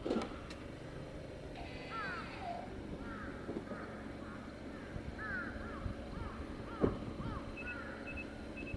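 Birds calling outdoors, a steady run of short, arched calls repeated every fraction of a second, probably crows. A knock sounds right at the start and another about seven seconds in, and a faint, even beeping of about two beeps a second begins near the end.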